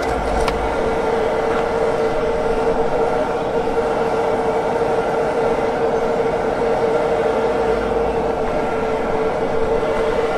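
Electric air blower on a coal forge running, a steady whirring hum over a rush of air, blowing the fire while a blade heats for hardening.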